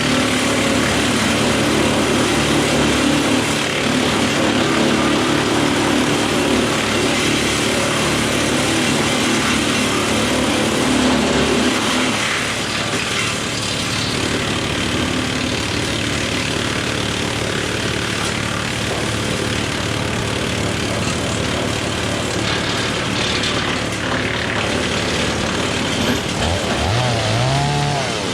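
Woodmaxx WM8 PTO wood chipper driven by a John Deere 4066R tractor, running loud and steady as branches are fed through. The steady hum changes about twelve seconds in, and a short rise and fall in pitch comes near the end.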